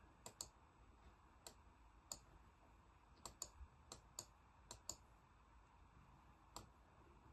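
Computer mouse clicking: about eleven sharp, quiet clicks at irregular intervals, several of them in quick pairs.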